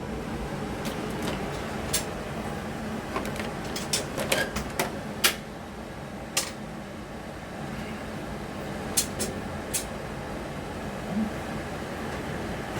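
Scattered light clicks and knocks of things being handled in a kitchen, clustered around four to five seconds in and again around nine seconds, over a steady background hum.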